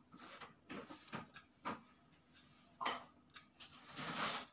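Faint pen-and-paper handling sounds: a few light taps and scratches of a pen writing in a spiral notebook, with a short, louder rustle of paper about four seconds in.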